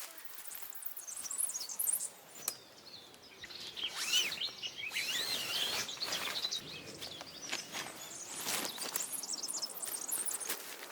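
Small birds singing and chirping in quick, twittering phrases, busiest from about four seconds in, with scattered clicks and rustles.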